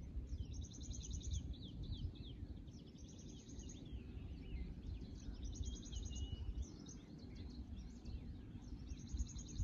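Wild birds singing: a high, rapid trill comes four times, every two to three seconds, among scattered chirps and whistles, over a low, uneven rumble.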